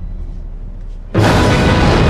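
Horror film soundtrack: a quiet low rumble, then a little past halfway a sudden loud blast of noise with music that keeps going, like a storm gust or crash.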